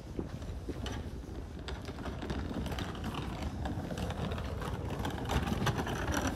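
Small hard wheels of a rolling suitcase rattling over stone paving, a dense clatter that grows louder as the case comes closer.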